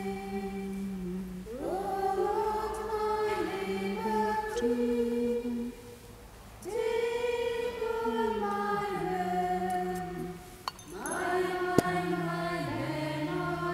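Offertory hymn sung slowly, in three long held phrases with short breaks between them. A single sharp click comes about two-thirds of the way through.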